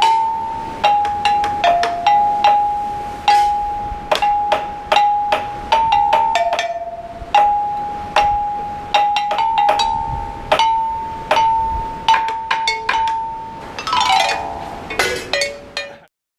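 Struck, bell-like tuned notes picking out a simple melody on two or three neighbouring pitches, each note ringing and fading. Near the end comes a quick falling run of notes, and the sound then cuts off suddenly.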